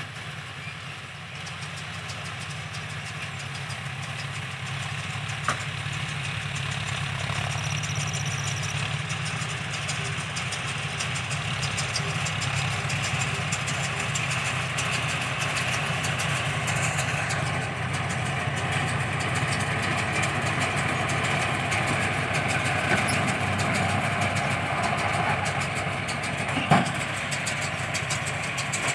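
John Deere tractor engine running steadily, its sound building slowly, with two sharp knocks, the louder one near the end.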